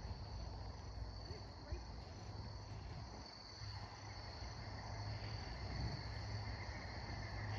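Insects trilling steadily: a thin, continuous high drone with a faint pulsing above it, over a low rumble.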